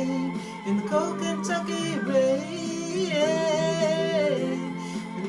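Music: long, wavering sung notes held over instrumental backing.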